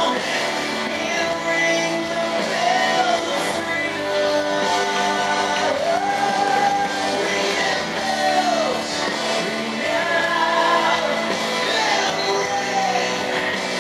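A recorded song playing over the hall's loudspeakers: a singer holding long, bending notes over a steady band accompaniment.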